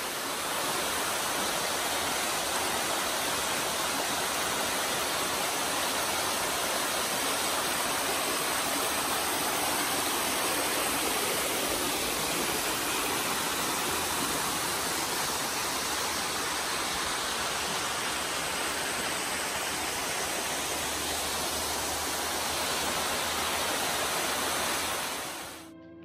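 Small jungle waterfall cascading over rocks, a steady full rush of water that fades out near the end.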